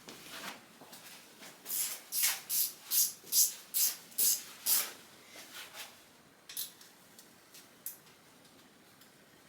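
A small hand tool scraping metal in quick repeated strokes, about eight strokes in three seconds, then a few fainter strokes and some sharp clicks. It is the tool working at an engine's rear main seal during a teardown.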